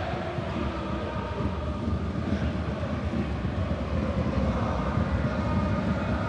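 Football stadium crowd noise: a steady roar from the stands with massed fans chanting, growing a little louder after the middle.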